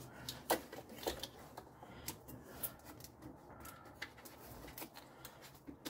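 Scattered light clicks and taps, irregularly spaced, of hands and small metal parts and tools at work on the alternator's electrical connection in the engine bay.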